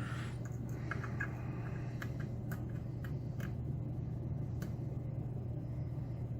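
Faint, irregular metallic ticks of a pick working the pins inside a Mauer SKG dimple lock, over a steady low hum.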